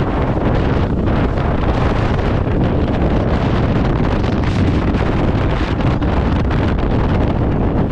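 Steady wind buffeting the microphone on a speedboat under way at speed, over the rush of the boat and water.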